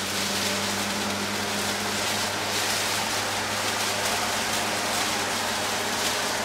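Fire sound effect: a steady rushing hiss of flames over a low, even hum.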